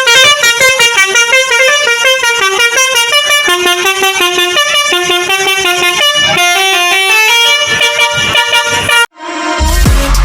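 Indonesian bus 'telolet' musical air horn (basuri horn played through a DAV voice module) playing a fast tune of short, rapidly changing notes. It cuts off abruptly about nine seconds in, and music with a deep bass starts near the end.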